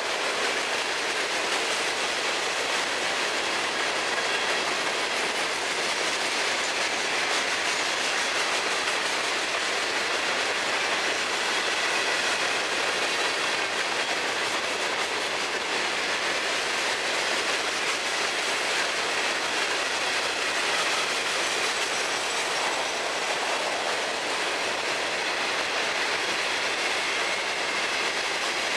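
Long freight train of steel open-top hopper cars rolling steadily past: the even running noise of steel wheels on the rails.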